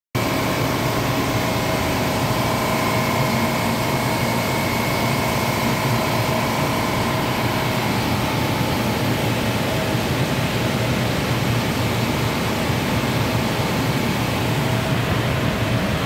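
Steady running noise of a Liebert DS computer-room air conditioner: an even rushing hum with a few faint steady whines on top.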